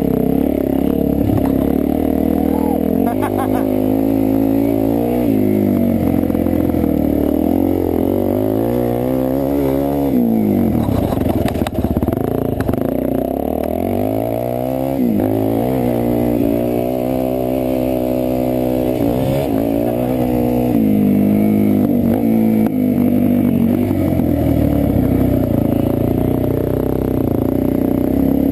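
Suzuki DR-Z400E single-cylinder four-stroke dirt bike engine heard up close from the bike, revving hard and falling back again and again as the rider works the throttle and shifts through the trail. The pitch climbs and drops repeatedly, with a couple of deep dips about a third of the way in.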